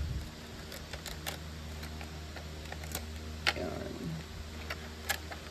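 Scattered light plastic clicks and taps from handling keycaps and keyboard parts, a few sharp ones spaced irregularly, over a steady low hum.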